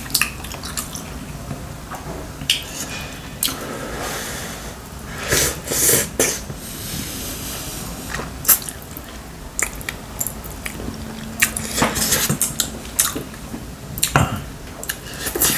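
Eating at the table: chopsticks clicking now and then against the stew pot and side-dish bowls, with chewing between the clicks.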